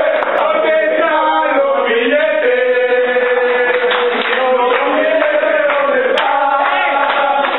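A group of young men chanting and singing together loudly, some notes held long: a basketball team's victory chant.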